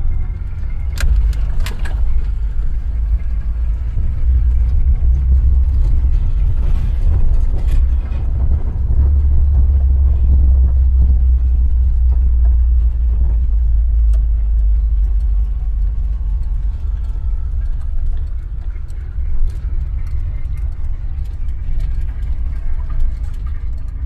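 Volkswagen Kombi van driving on town streets: a steady low engine and road rumble, heaviest around the middle, with a couple of sharp clicks about a second in.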